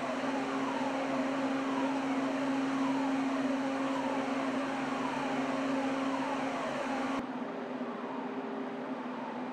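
Steady machinery hum from the heavy-lift vessel Pioneering Spirit, with faint falling whines about once a second. About seven seconds in the sound changes abruptly to a thinner, slightly quieter hum without the deep rumble.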